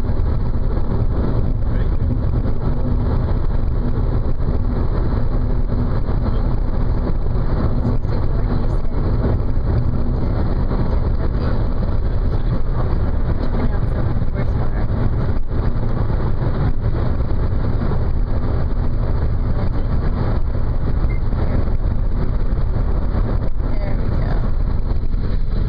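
Car being driven at a steady pace: a constant low rumble of road and engine noise.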